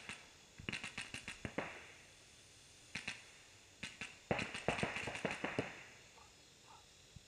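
Paintball markers firing in rapid strings of pops: about seven shots around a second in, two single shots near the middle, then a burst of about eight shots.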